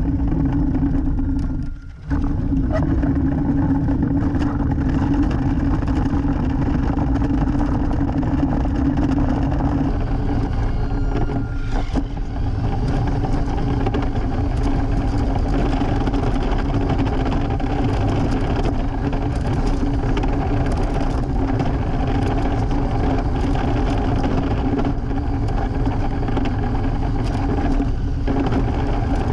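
Electric RC truck's motor and gears whining at a steady pitch, with tyre rumble on rough pavement, picked up close by a camera mounted on the truck. The sound breaks off briefly about two seconds in, then runs on unchanged.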